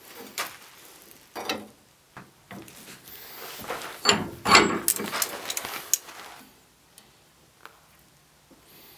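Steel rebar knocking and scraping against a cast-iron bench vise as it is set into the jaws and clamped. A few separate knocks come first, and the loudest run of clatter and scraping is about four to six seconds in. After that it is nearly quiet, with a few small ticks.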